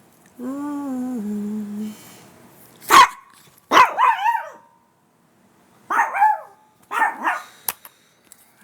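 Dog barking: a short, steady, lower-pitched sound that steps down in pitch near the start, then a sharp bark about three seconds in, followed by a few more separate barks with pauses between them.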